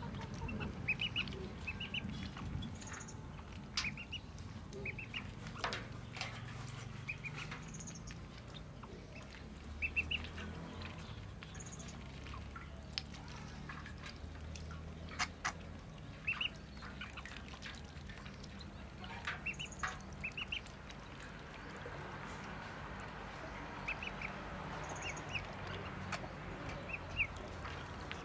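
Ducklings peeping: short, high-pitched calls in quick little clusters, repeated every second or two, with scattered small splashes and knocks as they paddle and dabble in a metal basin of water.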